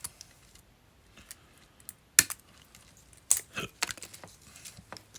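Hard, brittle plastic sheathing on an old Honda wiring harness cracking and snapping as it is peeled off by hand: a scatter of sharp clicks, the loudest about two seconds in, and a cluster a little later.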